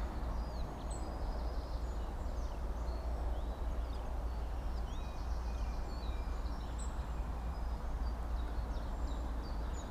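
Birds chirping, many short high calls and sweeps scattered throughout, over a steady low outdoor rumble.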